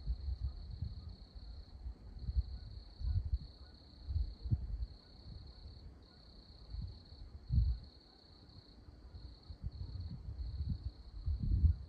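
A high, steady trill from a distant evening animal chorus, pulsing in stretches of about a second with short breaks. Irregular low rumbles of wind on the microphone come and go underneath it and are the loudest part.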